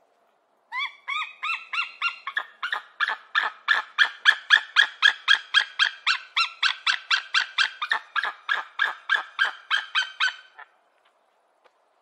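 White-tailed eagle calling: a long run of short, sharp yelping notes, about three or four a second. It starts about a second in, is loudest in the middle, and stops after about ten seconds.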